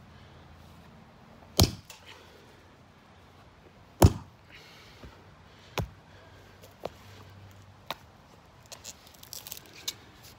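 Hatchet blows chopping into an old weathered wooden board lying on the ground: three heavy chops about two seconds apart, the loudest about four seconds in, then a couple of lighter knocks and a quick cluster of small clicks and cracks near the end.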